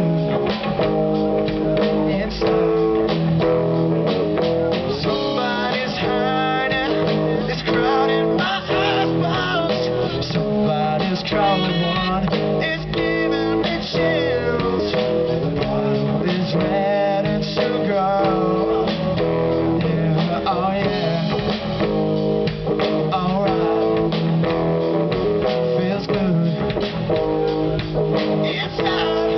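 Rock band playing, guitar leading over a drum kit.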